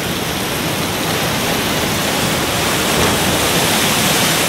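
Steady rushing of a small waterfall pouring over rock into a river pool.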